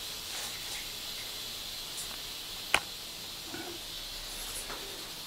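Faint steady hiss of a small tiled room with light handling sounds, and one sharp click a little under three seconds in.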